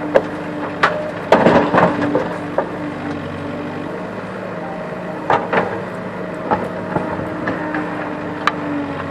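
JCB backhoe loader's diesel engine running steadily while its bucket dumps soil and stones into a tractor trolley. The stones clatter and thud, loudest about a second and a half in and again about five seconds in, with a few sharp knocks between.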